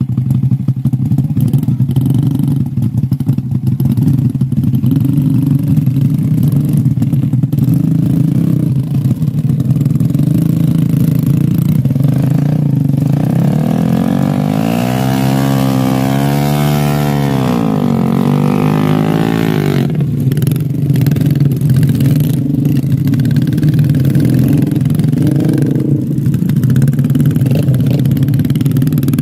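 Trail motorcycle engines running steadily at low revs. About halfway through, one engine revs up and back down over several seconds.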